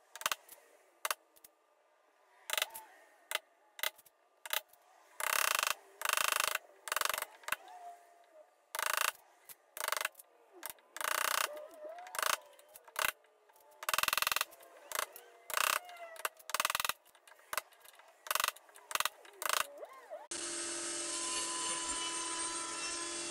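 A wooden mallet strikes a chisel again and again at an uneven pace, chopping out a groove in a hardwood panel. About twenty seconds in, a cabinet table saw is heard running steadily with a held hum.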